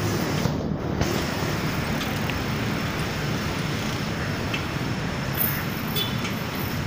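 Steady street traffic noise: a continuous low rumble of passing and idling vehicles, with a few faint ticks.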